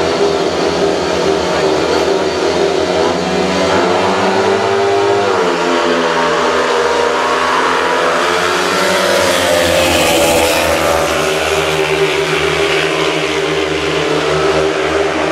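Speedway motorcycle engines racing round the track, their pitch rising and falling again and again as the throttles open and close.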